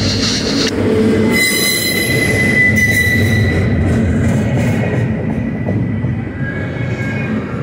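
Double-stack intermodal well cars rolling past close by: a steady rumble and rattle of steel wheels on rail, with a thin, high wheel squeal that is strongest from about one and a half to three and a half seconds in.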